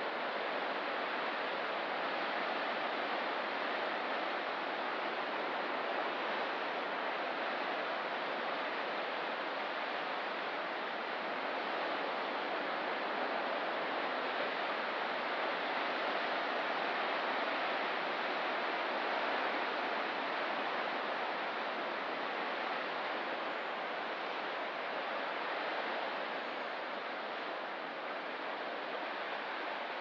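Ocean surf washing steadily, an even hiss with no separate wave breaks standing out.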